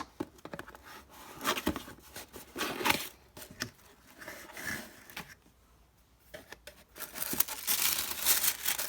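Doll-outfit packaging being opened and unwrapped by hand: scattered rustles, tearing and scrapes, a short lull midway, then steady crinkling near the end.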